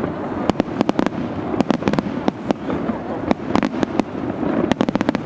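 Fireworks going off: sharp cracks and pops in irregular clusters, several a second, over a continuous background din.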